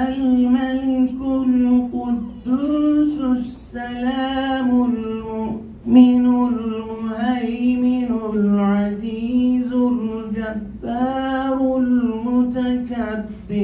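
A solo man singing a naat, a devotional song in praise of the Prophet Muhammad, through a microphone: long phrases of held, wavering notes with short breaks for breath.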